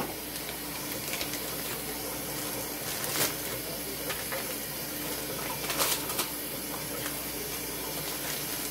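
A thin plastic bag crinkling in the hands, briefly about three seconds in and again about six seconds in, over a steady hiss with a faint low hum.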